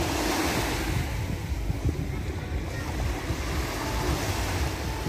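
Small waves breaking and washing up onto a sandy shore, with wind rumbling on the microphone.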